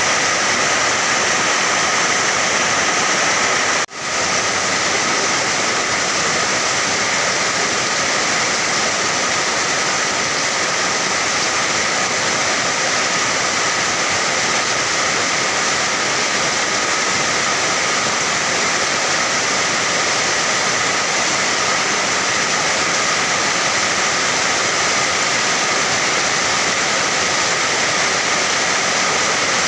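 Heavy rain falling in a steady, dense rush with no individual drops standing out. There is a momentary dropout about four seconds in.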